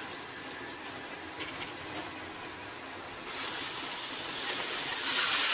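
Quiet room noise, then a loud steady hiss that starts about three seconds in and grows louder toward the end.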